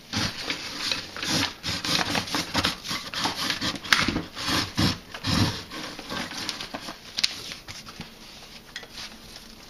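A fibre rush strand being pulled and wrapped around the chair seat's rails: irregular rubbing and rustling strokes of twisted paper cord sliding over the woven rush and wood. There is a sharp click about four seconds in, and the strokes grow softer after about six seconds.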